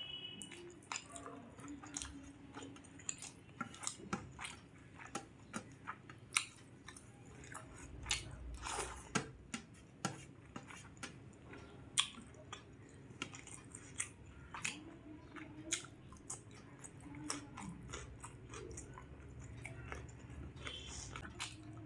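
A person chewing a meal of rice and curries close to the microphone, with many short wet mouth clicks and smacks, several a second.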